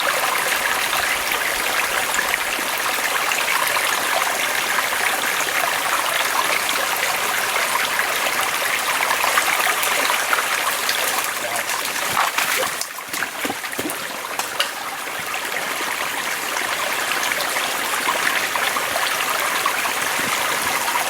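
Small mountain stream trickling and babbling over rocks in a steady rush, dipping briefly about two-thirds through with a few light clicks.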